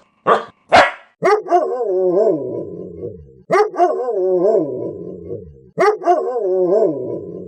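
A dog with an unusual bark: three short sharp barks, then three long drawn-out calls. Each long call starts with a bark and wavers up and down in pitch like a yodelling howl.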